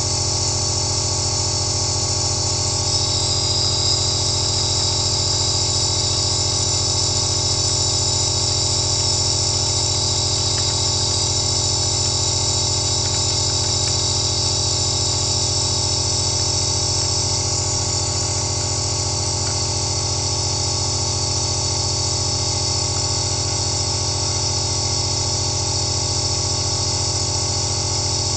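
Compressor nebulizer running steadily through a face mask: an unbroken motor drone with a high hiss of air and mist over it.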